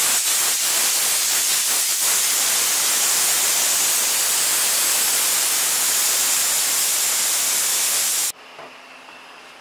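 Aluminium stovetop pressure cooker hissing steadily and loudly as steam escapes from its valve: it is sealed and cooking at full pressure. The hiss cuts off suddenly about eight seconds in, leaving quiet room tone.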